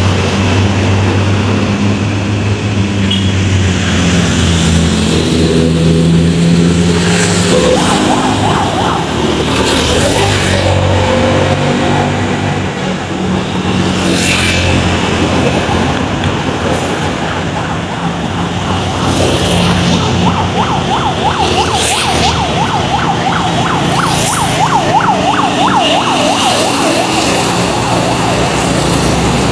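Fire trucks in a convoy driving past with their heavy engines running, then a siren in a fast warbling yelp, briefly about eight seconds in and again for several seconds from about twenty seconds in.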